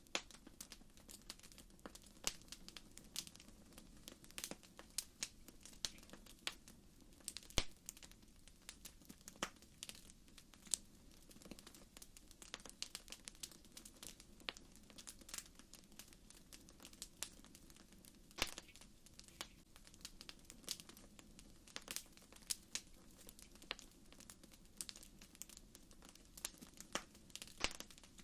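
Campfire crackling: burning wood gives off irregular sharp pops and snaps, a few a second, over a faint steady low hiss.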